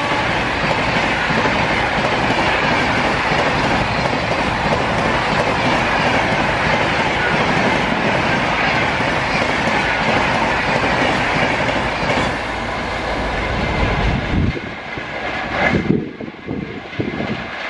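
Long rake of Rajdhani Express LHB passenger coaches passing close by at speed: a loud, steady rush of wheels on rail with clickety-clack over the joints. About fourteen seconds in, the rush drops away into separate wheel clacks and knocks as the end of the train goes by.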